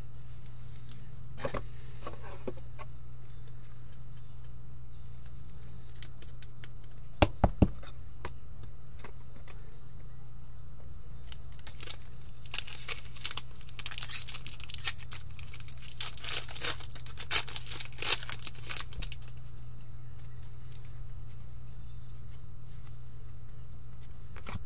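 Foil wrapper of a hockey card pack being torn open and crinkled, a dense run of crackling rips in the second half. Earlier, three sharp knocks come in quick succession, over a steady low hum.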